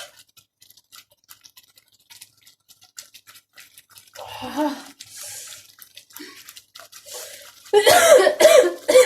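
A person tasting a very spicy chilli sauce: faint mouth clicks, then about four seconds in a short voiced sound and a hissing breath, and near the end a loud burst of voice reacting to the heat.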